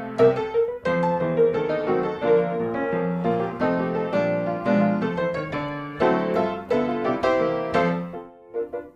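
Background music played on piano, a light melody of steady notes that thins out and fades near the end.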